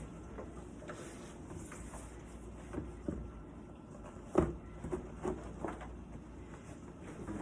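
Scattered light knocks and clunks of household items being handled, the loudest about four and a half seconds in.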